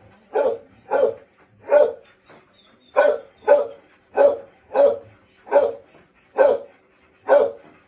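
A dog barking over and over in a steady series, about ten barks, roughly one every half second to second, with a brief pause about two seconds in.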